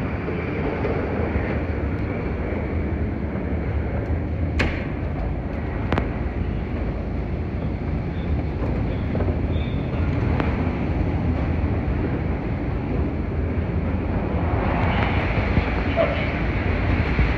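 Steady low rumble and hiss of moving escalators and the airport hall's background noise, with two sharp clicks about four and a half and six seconds in.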